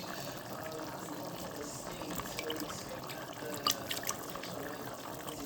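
Water running or pouring steadily, with a few sharp clicks about two thirds of the way through.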